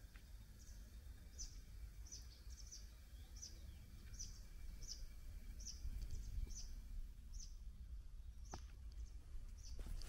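A small bird repeating a short, high call note a little more than once a second, over a low rumble of wind on the microphone.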